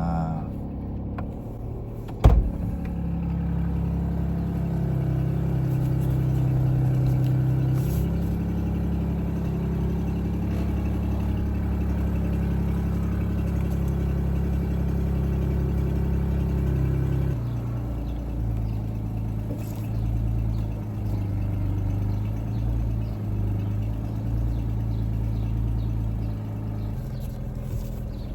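Jeep engine idling steadily, with a sharp thump about two seconds in; the idle note drops a step about two-thirds of the way through.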